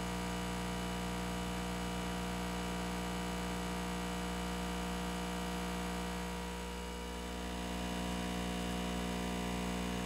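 Steady electrical hum with several fixed tones from a hot air rework station running, blowing low-pressure hot air over a laptop GPU during a preheat stage of a BGA reflow.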